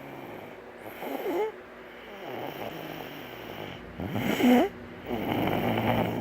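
Snoring in repeated breaths, each a raspy snore with a wavering pitch, the loudest about four seconds in; the sleeper is said to be ill.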